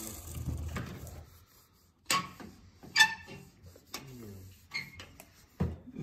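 Metal bike parts being handled on a steel workbench: a few separate sharp metallic clinks and knocks, the loudest about halfway through. A hiss fades out about a second and a half in.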